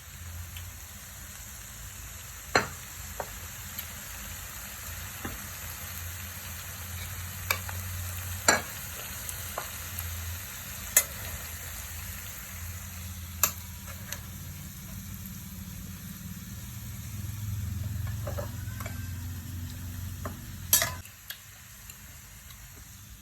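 Food sizzling as it fries in a pan, with a steady hiss and a low hum under it that stops near the end. Sharp clinks, as of a utensil knocking against the pan, come about half a dozen times, the loudest near the end.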